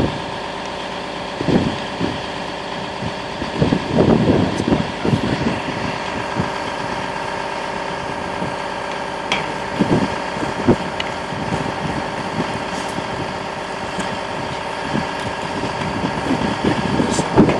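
Steady hum of an engine idling, with several steady tones running through it, and a few brief knocks and rustles from the tank-sampling gear being handled.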